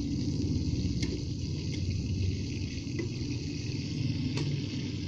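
Hot dogs frying in a pan: a steady sizzling hiss over a low rumble, with a few faint clicks.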